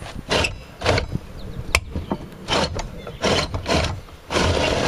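Stiff compound miter saw turntable being forced round by its lock handle, scraping and grinding in short strokes, with a sharp click under two seconds in. The owner believes something is jammed under the turntable.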